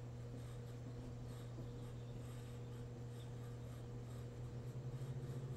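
Faint brushing of a paintbrush laying tempera paint onto paper in short strokes, over a steady low hum.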